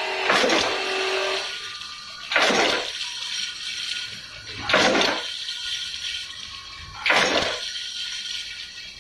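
Dual-head automatic riveting machine cycling four times, each stroke a short hissing burst about every two and a half seconds, as it sets rivets through a piece of cardboard. A steady hum runs under the first stroke and stops about a second and a half in.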